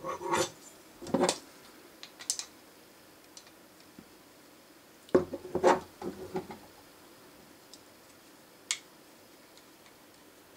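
Small model-kit frame parts and a screwdriver clicking and clattering against each other as they are handled and a screw is set into the frame rail. The clicks come in short clusters with pauses between, the loudest about a second in and again around five to six seconds in, and a single tick near the end.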